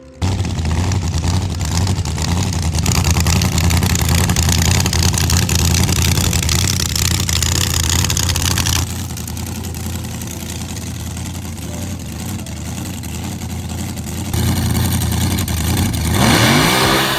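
Race car engine running hard at high revs, loud and steady, cutting in suddenly. It drops back about nine seconds in, then grows louder again near the end with a rising rev.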